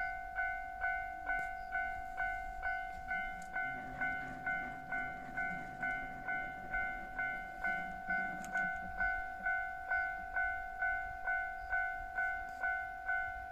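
Japanese level-crossing warning bell ringing steadily at about two strikes a second, the signal that a train is approaching or passing. A low drone rises and fades from about four to nine seconds in.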